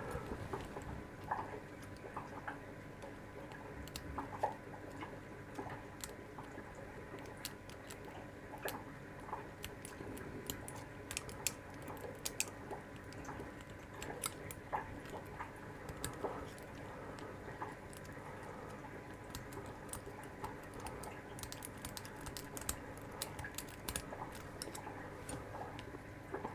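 Lock pick and metal shim working the tiny pins of a small pin lock: faint, irregular little metallic clicks and scratches as the pins are tickled from the front and the shim is pushed in from the back.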